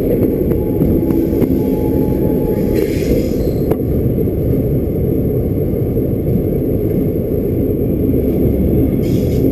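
Freight train rolling slowly through a yard during shunting, with a steady low rumble from the wheels on the rails. A few sharp clicks come in the first few seconds, and a brief hiss comes about three seconds in.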